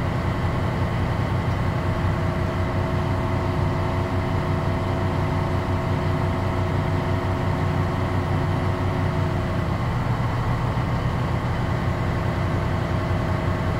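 Truck diesel engine running steadily at a fast idle of about 1200 rpm, heard inside the cab, while its air compressor builds air brake pressure toward cutout.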